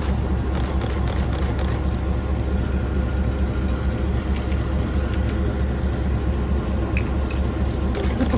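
Diesel locomotive engine running with a steady low drone. Camera shutters click repeatedly over it, some in quick bursts.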